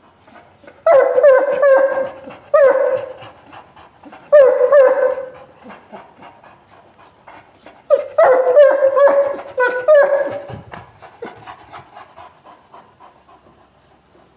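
Great Dane panting fast, a quick run of pants several times a second. In four louder stretches the pants take on a steady pitch, about a second in, near three seconds, near five seconds, and from about eight to ten seconds. After that the panting fades.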